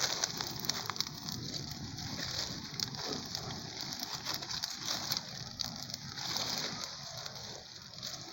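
Bonfire burning, crackling with many small irregular pops over a steady hiss.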